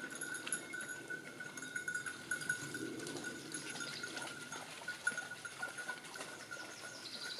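Bells worn by goats, ringing faintly and irregularly as the animals move about, one bell tone sounding over and over.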